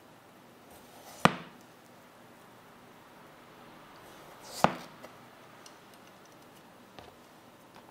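Chef's knife cutting through a raw peeled potato and knocking down onto a plastic cutting board: two sharp knocks about three and a half seconds apart, the second led in by a short slicing scrape, then a few faint clicks near the end.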